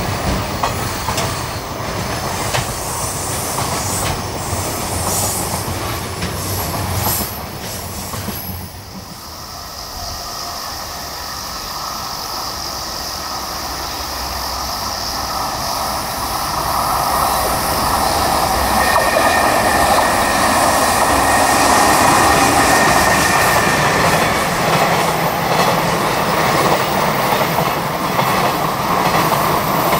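JR Freight container train passing at speed: the wagons' wheels clatter over the rail joints with a continuous rumble, and a steady high wheel squeal joins in near the middle as the sound swells to its loudest.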